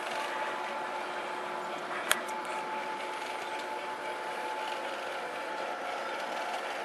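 Battery-powered G-scale model train, two New York Central F-unit diesels with freight cars, running steadily along the track with a faint steady whine, and one sharp click about two seconds in.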